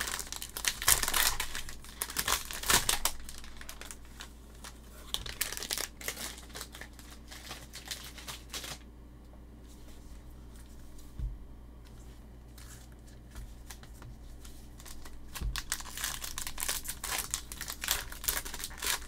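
Clear plastic wrapper of a trading-card cello pack crinkling as it is handled and torn open. Dense crinkling comes in the first few seconds and again near the end, with a quieter stretch of occasional crackles between.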